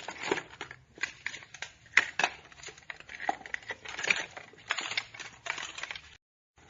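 Objects being broken and crushed: an irregular, rapid run of cracks, snaps and crunches, several a second, stopping briefly near the end.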